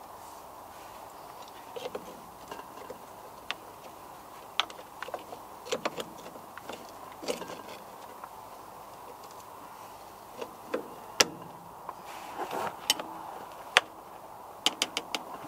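Irregular metallic clicks and clinks of a spanner working on the battery cable nuts and bolts, over a faint steady hum.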